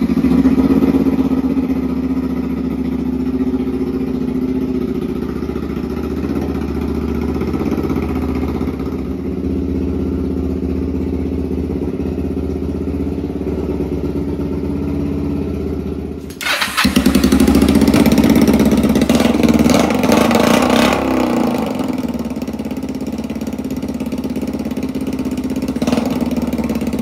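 Kawasaki Vulcan 500 (EN500) parallel-twin engine running steadily on its first start after sitting, still warming up. About two-thirds in it runs louder for a few seconds with a little revving, then settles back to a steady run.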